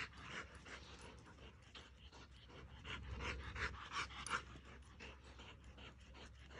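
Young dog panting hard and fast, short even breaths several times a second, out of breath from chasing a flirt-pole lure.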